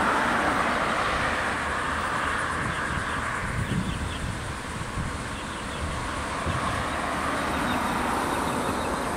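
Amtrak passenger train rolling past on the track: a steady wheel-on-rail rumble and hiss that slowly fades.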